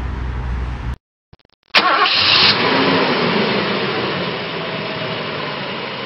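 A car engine starting with a sudden loud burst about two seconds in, then running steadily and fading away. Before it, a low room hum stops abruptly, followed by a moment of silence.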